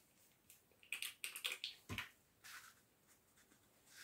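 Faint rustles, scratches and a soft knock of card paper and a plastic glue bottle being handled on a desk.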